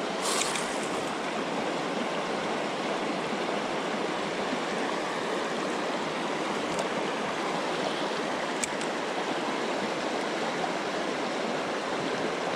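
Steady rush of a flowing creek, with a couple of faint clicks.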